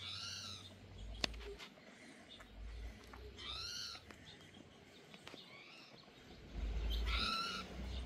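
Animal calls: four drawn-out calls, each rising then falling in pitch, the last one the loudest. A single sharp click comes about a second in.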